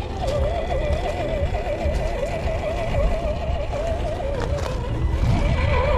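Electric motor of an RC Ford Bronco scale crawler whining as it drives over loose gravel, its pitch wavering quickly and continuously with the throttle, over a low rumble and scattered crunching ticks from the tyres on the stones.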